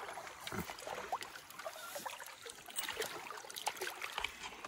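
Shallow river water splashing and sloshing around wading legs and a landing net, in many small irregular splashes.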